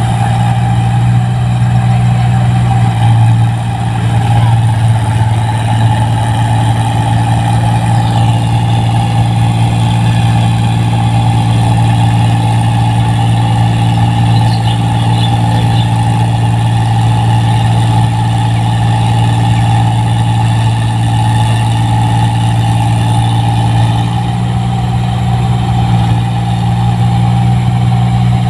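New Holland 1545 rice combine harvester working in the field: its diesel engine and threshing machinery run steadily, a constant drone with a steady higher whine over it.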